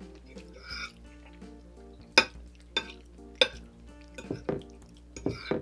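Metal fork clinking and scraping against a plate while twirling spaghetti: a series of sharp clinks starting about two seconds in, over soft background music.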